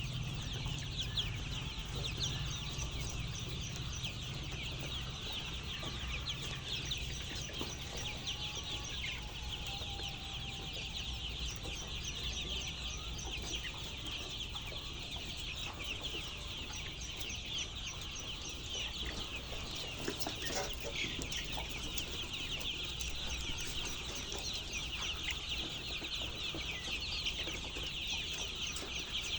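A flock of chickens calling continuously, many short overlapping calls and clucks at once, over a low steady hum.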